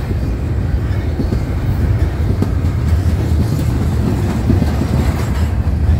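Double-stack intermodal freight train's container-laden well cars rolling past close by: a loud, steady low rumble of steel wheels on rail with scattered clanks and clacks.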